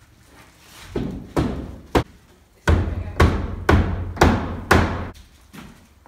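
About eight sharp knocks on a wooden door frame as a pre-hung entry door is fastened into its rough opening: three irregular ones, then five in a steady run about twice a second.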